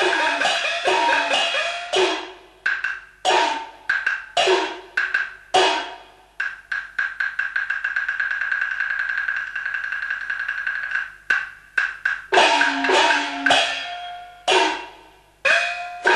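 Chinese traditional percussion accompanying a glove puppet show: struck strokes with tones that slide down in pitch, sharp wood-block strikes, and a fast rolled stretch in the middle before more falling-pitch strokes near the end.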